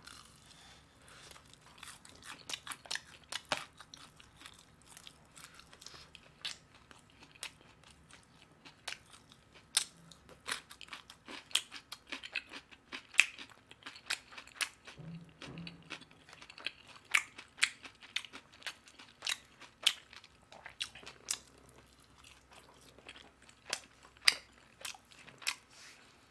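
Fried chicken being chewed close to the microphone: a mouthful crunched with many sharp, irregular crunches.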